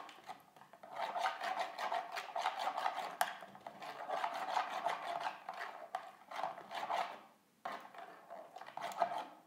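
Raw eggs being beaten by hand in a plastic steamer tray, the utensil scraping and sloshing against the tray in quick, rhythmic strokes. There are brief pauses about half a second in and around seven and a half seconds.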